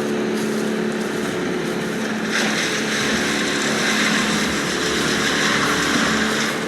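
Engine of land-clearing machinery running steadily at an even pitch. About two seconds in, a loud hissing rush starts on top of it and holds until near the end.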